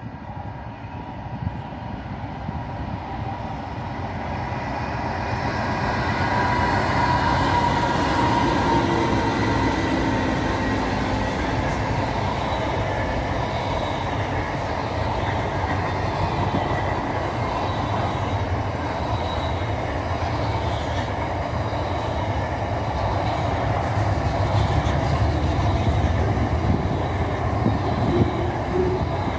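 Freight train of container wagons passing close by: the sound builds over the first several seconds as the head of the train arrives, then the wagons keep up a steady rumble and rattle of wheels on the rails, with a few sharp clicks near the end.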